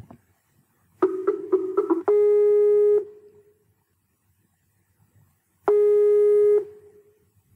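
Telephone call being placed: a quick run of about six short dialing beeps, then the ringback tone rings twice, each ring just under a second long and about three and a half seconds apart.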